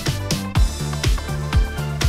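Upbeat electronic dance music with a steady kick drum about twice a second and a bass line.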